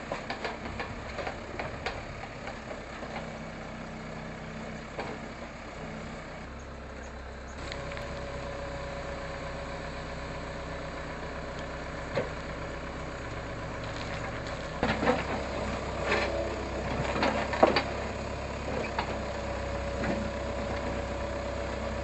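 Backhoe loader's diesel engine running steadily while it digs, with a steady whine joining about a third of the way in. A cluster of sharp metal clanks comes from the bucket working the rocky ground about two thirds of the way through.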